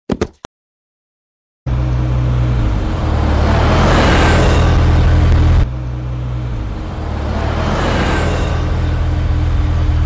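A car driving past twice, engine hum and tyre noise swelling and then easing. The second pass is spliced in abruptly about halfway through. A few brief clicks come at the very start, then a second of silence before the first pass begins.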